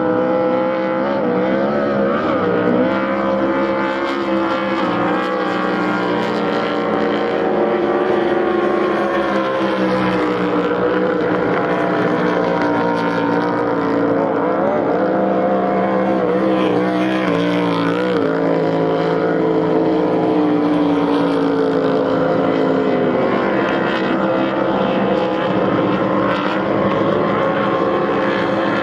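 Cracker Box inboard race boats running hard, more than one engine heard at once, their pitch wavering up and down as they speed past and round the course.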